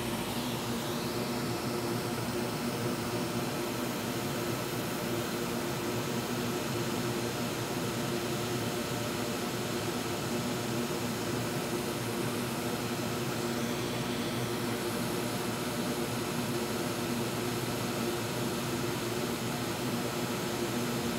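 Steady whoosh of a fan with a faint low hum, unchanging throughout.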